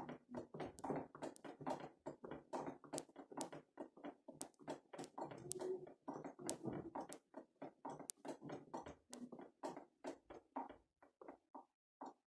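Piano accordion played very softly in short, detached notes, growing sparser and dying away near the end.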